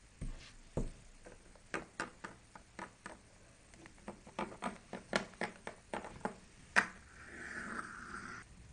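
Small plastic toy figures and their accessories clicking and tapping against each other and a wooden tabletop as they are handled: an irregular run of light clicks, with one sharper click near the end, then a short rubbing sound.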